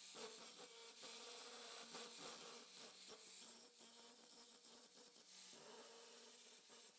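Electric welding arc running with a steady buzzing crackle and a faint hum, cutting off suddenly at the end.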